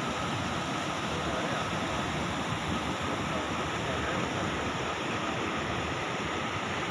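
Stream water rushing and churning between boulders: a steady, even rushing noise.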